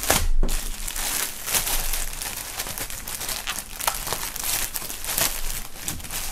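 Thin clear plastic wrapping around a folded T-shirt crinkling and crackling as hands press and pull at it to get the shirt out.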